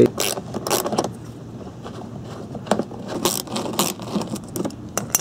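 Irregular metallic clicks and rattles of a small socket wrench working a 10 mm bolt out from under a car's front bumper.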